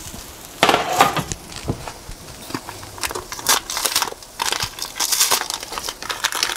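Aluminium foil on a baking tray crinkling and rustling, with scattered clicks and knocks as the tray of hot meatballs is handled.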